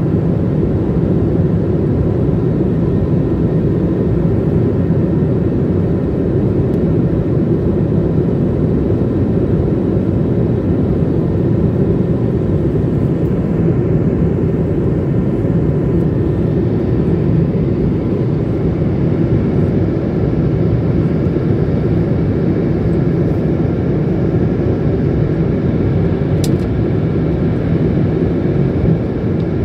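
Cabin noise of a jet airliner in flight, heard from a window seat beside the engine: a steady, even rush of turbofan engine and airflow noise, low-pitched and unchanging throughout.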